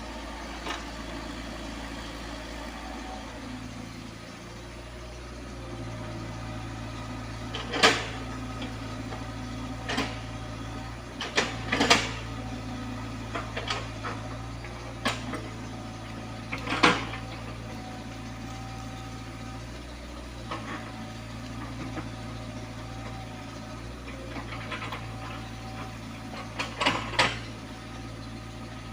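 Komatsu PC75UU mini excavator's diesel engine running steadily, with sharp metallic clanks and knocks every few seconds from the working bucket and arm, several coming close together near the end.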